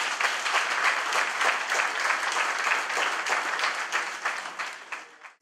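A crowd applauding, a dense steady patter of many hands clapping that cuts off abruptly near the end.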